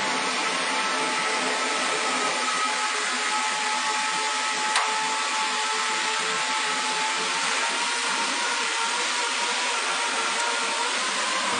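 CNC router machine running: a steady whirring noise with a high whine held throughout, and a single click about five seconds in.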